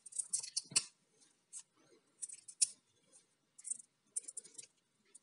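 Ethernet cable being cut open by hand to pull out its brown twisted pair: a string of short, irregular, faint snips and clicks.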